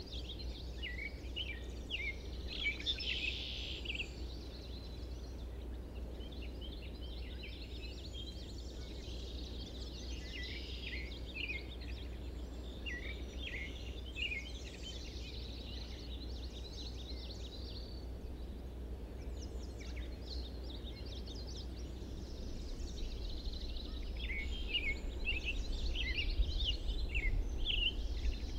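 Several songbirds chirping and singing in a reed marsh, many short calls and trills overlapping on and off, over a steady low rumble.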